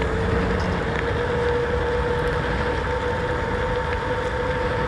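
Wind rushing over the microphone while riding an e-bike, with a steady whine from its 2000-watt hub motor running at constant speed.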